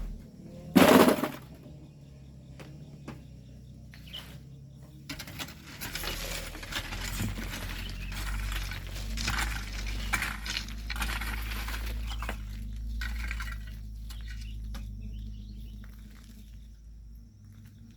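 Volcanic sand and stones being worked with hand tools: gravel clattering and pattering, with a loud scrape about a second in. From about six seconds a low rumble runs under a stretch of denser clattering.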